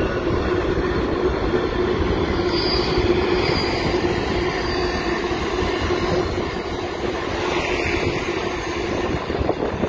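Union Pacific freight train rolling by on the rails, a steady rumble with a faint high wheel squeal a few seconds in.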